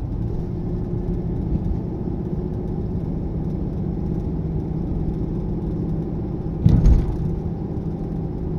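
Steady road and engine hum inside a moving car's cabin, with a low drone. A short, louder thump comes about seven seconds in.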